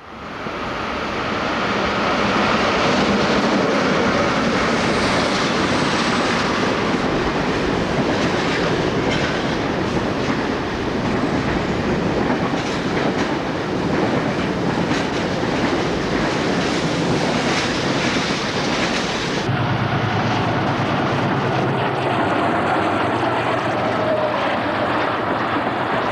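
Electric-locomotive-hauled container freight train passing, its wheels clicking over rail joints. About two-thirds through, the sound cuts to a diesel-hauled double-deck passenger train passing, with a steady low engine hum under the wheel noise.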